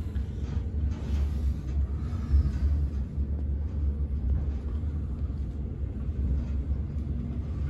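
Steady low rumble of a Schindler traction elevator car climbing between floors, heard from inside the cab.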